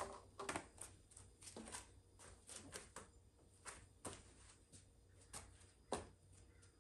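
Faint, irregular light clicks and taps, a few each second, from hands handling small objects.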